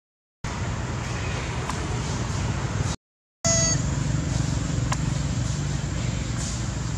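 Steady low rumble, broken twice by short silent cuts, with a brief high-pitched squeal about three and a half seconds in.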